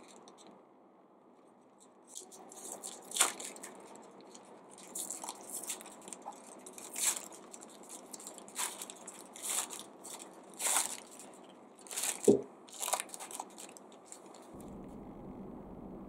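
Plastic ice lolly wrapper being torn open and peeled back by hand: a run of sharp, irregular crinkles and rips, loudest about three seconds in and again near twelve seconds.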